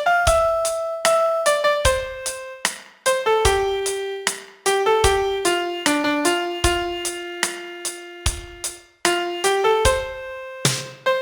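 Piano playing a slow melody one note at a time, with deep bass notes landing on some of the beats.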